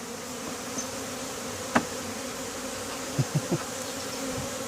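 Honeybees buzzing around an opened hive: a steady hum. A sharp click sounds just under two seconds in, and three quick dull knocks follow a little after three seconds, as the hive's parts are handled.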